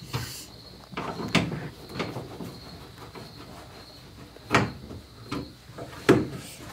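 Plastic car interior trim clicking and knocking as a handle-shaped piece is pushed into its clips in the roof above the door. Several separate sharp knocks, the loudest about four and a half and six seconds in.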